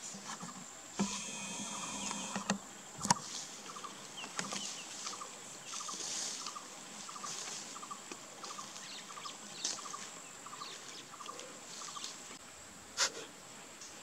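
Grassland ambience: a steady high-pitched insect drone, with a short chirp repeating about every 0.7 seconds. Two sharp knocks stand out, one about three seconds in and one near the end.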